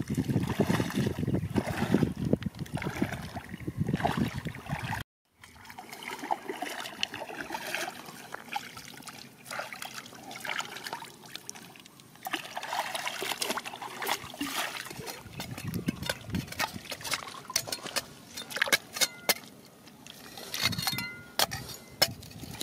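Shallow river water splashing and sloshing around wading legs. After a brief cut, quieter trickling and dripping as a gold pan is dipped and rinsed, with scattered small clicks, and a metal trowel knocking and scraping among rocks near the end.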